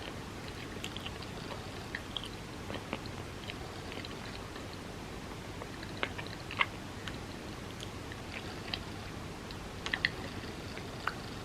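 Close-miked chewing of a bagel with cream cheese: soft, wet mouth clicks and smacks scattered over a steady hiss, with a few louder clicks a little past the middle and near the end.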